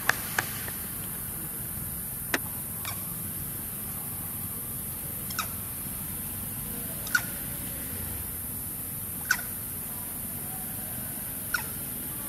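Short, sharp chirps that repeat roughly every two seconds, two close together at the start, over a steady high-pitched hiss of ambient forest noise.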